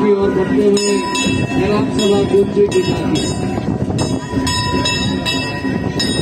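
A group of people singing a devotional procession song, with rhythmic ringing metal percussion struck about two to three times a second and a steady held tone underneath.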